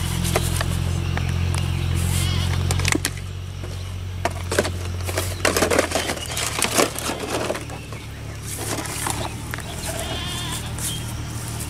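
Plastic bottle traps and a plastic basket being handled, with scattered knocks and crackles, over a low steady hum that drops away about three seconds in. Around the middle come several short pitched animal calls.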